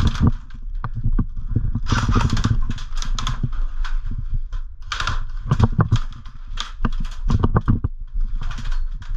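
Irregular footsteps and knocks on wooden floorboards inside a plank-built hut, mixed with the close rustle and scrape of clothing and gear against the body-worn camera.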